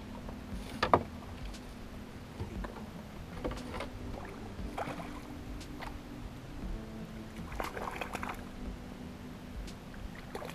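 Knocks and rattles of tackle and gear in a small fishing boat while a crappie is hooked and played on rod and reel, over a steady low hum that drops out for a few seconds in the middle. A single sharp knock about a second in is the loudest sound.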